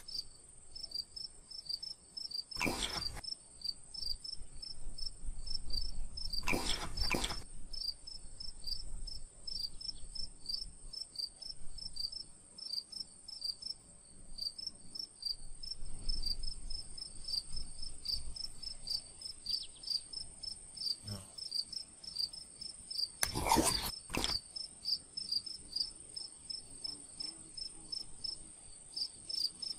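Insects chirping, a steady high trill with a quick run of repeated chirps under it, a few a second. A few brief louder noises break in, about three seconds in, around seven seconds, and twice close together near twenty-four seconds.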